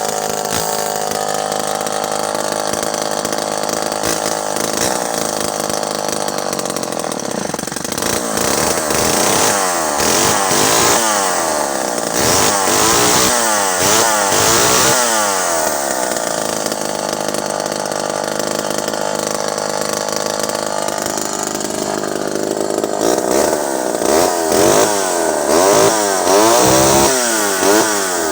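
Vintage Pioneer 1200 two-stroke chainsaw running. It holds a steady speed, then is revved up and down again and again in quick blips, settles back, and near the end is revved repeatedly once more.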